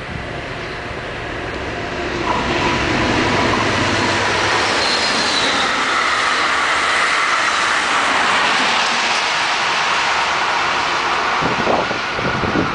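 NJ Transit ACES passenger train of bilevel coaches passing close by at speed: a steady rush of wheels on rail that swells about two seconds in as the train draws alongside, with faint thin metallic squeals from the wheels.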